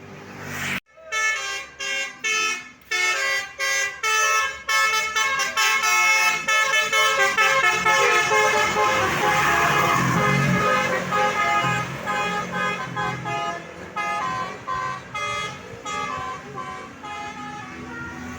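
A tourist bus's 'telolet' musical horn (basuri type) playing a tune. It begins about a second in with a run of short separate toots, then plays a fast, continuous melody of changing notes.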